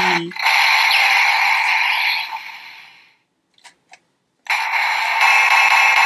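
Electronic sound effects from the Kamen Rider Ohma Zi-O Driver toy belt's speaker, part of its Kamen Rider Gaim ("Orange") finishing-move sequence. A loud hissing effect fades out over about two seconds, then comes a brief silence with two faint clicks. About four and a half seconds in, a new hissing effect cuts in abruptly with a steady electronic tone.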